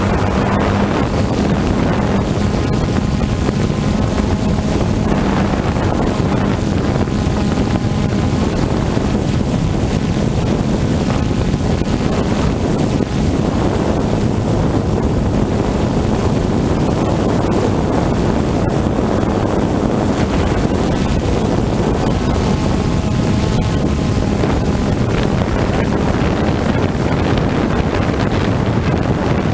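Steady whir of a quadcopter drone's motors and propellers, picked up by its own onboard camera, with wind rushing over the microphone.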